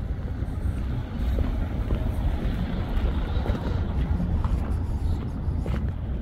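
Wind rumbling on the microphone outdoors, a steady uneven low buffeting, with a few light footsteps on dirt and gravel toward the end.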